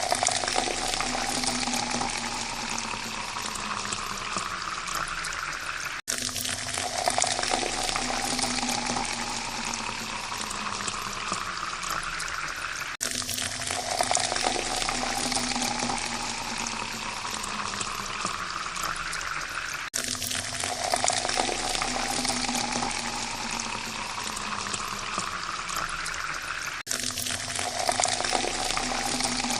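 Water pouring into a glass, its pitch rising steadily as the glass fills. It is repeated as a loop, each fill lasting about seven seconds and breaking off suddenly before the next begins, about four times.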